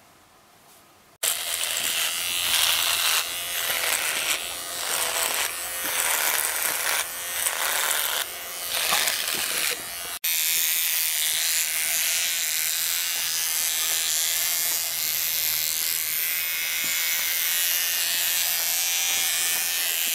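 Electric beard trimmer buzzing while facial hair is cut. It starts suddenly about a second in and wavers in level for several seconds, breaks off sharply about ten seconds in, and then buzzes more steadily.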